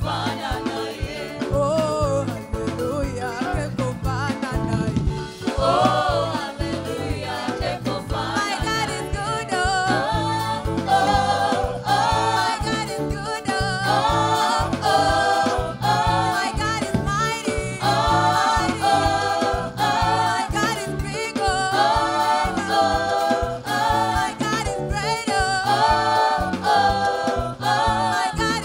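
Live gospel praise music: several singers on microphones singing together over a band with a drum kit keeping a steady beat. The voices grow fuller about a third of the way in.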